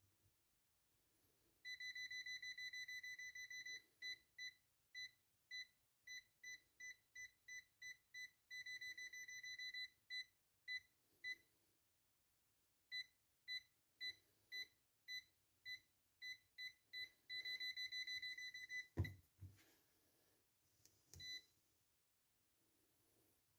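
Maxwell MP-25703 multimeter's continuity buzzer beeping, a single high tone. It alternates long steady beeps while the circuit is closed with runs of short beeps, about two a second, as the contact makes and breaks. A single knock comes near the end.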